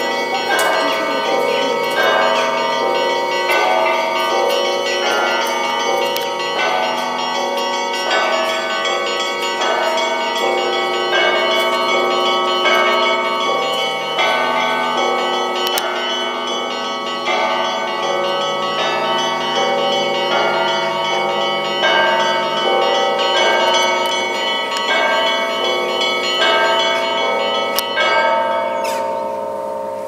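Russian Orthodox church bells rung by hand from a belfry: a festive peal in which smaller bells chime in quick repeated patterns over the steady strokes of the larger bells. Near the end the striking stops and the bells ring out and fade.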